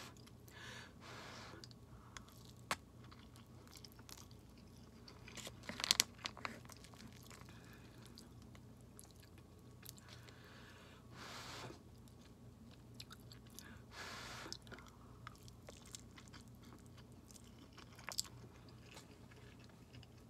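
Faint close-up chewing and mouth sounds of a person eating forkfuls of instant noodles, with scattered small clicks and a louder cluster of clicks about six seconds in.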